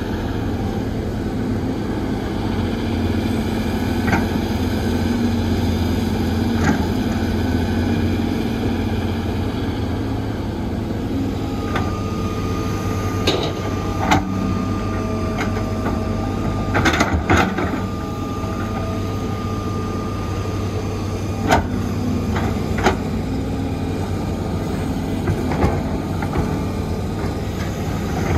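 Heavy construction machinery diesel engines running steadily, with scattered sharp metallic clanks and knocks and a thin high whine held through the middle.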